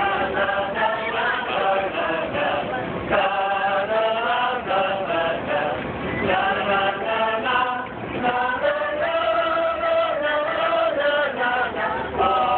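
A group of voices singing together in chorus, with held notes that change pitch every second or so.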